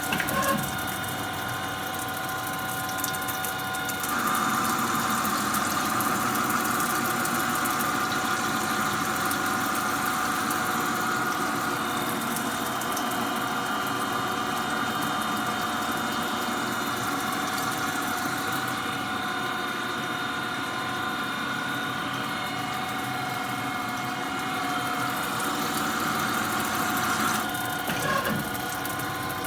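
Machine tool running steadily while machining a turbocharger part, with a constant whine over a hum. The cut changes about four seconds in and again near the end.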